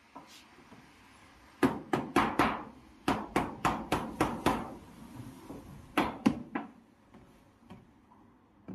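A refrigerator's cover panel being fitted back in place: a quick run of about a dozen knocks and taps starting about a second and a half in, then three more near six seconds.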